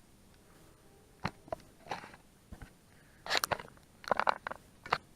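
Scattered small clicks and crunchy plastic rattles, in two quick clusters past the middle, as a new plastic gas cap is handled and fitted onto the ATV's fuel tank.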